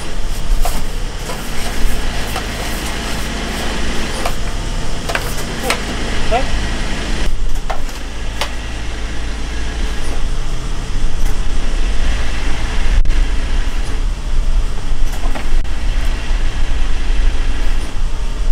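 Garbage packer truck's engine running steadily at idle, with scattered short knocks and scrapes from the work around it.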